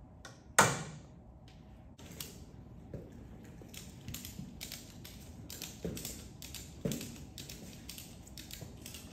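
One sharp hammer blow on the steel forklift mast about half a second in, ringing briefly. It is followed by a run of irregular metal clicks and light knocks.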